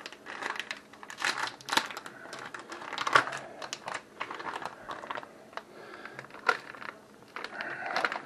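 Plastic pouch of sauerkraut crinkling and crackling as it is handled and opened, with irregular sharp crackles, the loudest about three seconds in and another past six seconds.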